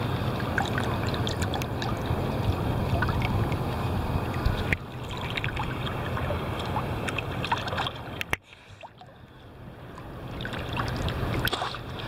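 Sea water sloshing and splashing close around a camera held at the surface in choppy ocean, with many small splashes and droplet clicks. A sharp knock about eight seconds in, then the sound briefly drops away and builds back up.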